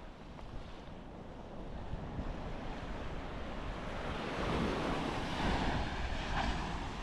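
Waves breaking and washing up the beach, swelling over a few seconds to a peak about two-thirds through and then easing, with wind buffeting the microphone.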